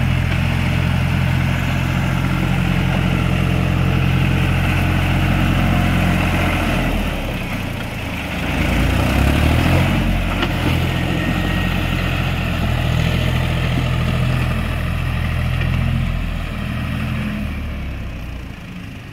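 Farm tractor's diesel engine running steadily as it pushes and levels soil with a front dozer blade. The engine note changes about seven or eight seconds in, then picks up, and it fades toward the end as the tractor moves away.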